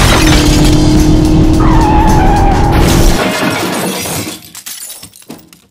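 Crash sound effects over music: glass shattering and a tyre screech that falls in pitch. After about three seconds these give way to scattered clatter that fades out.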